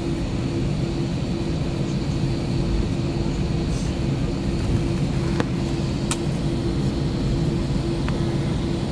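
Cabin noise of an Airbus A321 taxiing: a steady engine hum with a held low tone and a faint high whine, and two sharp clicks a little past the middle.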